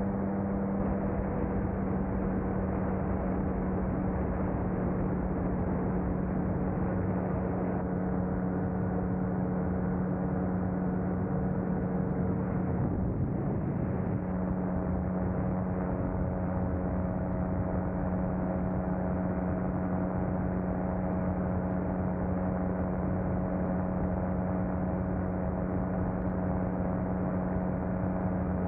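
Engine of a small light aircraft running steadily in flight, heard from on board: a constant droning hum with a strong low note over rushing noise. About halfway through some of its higher overtones shift to a new pitch.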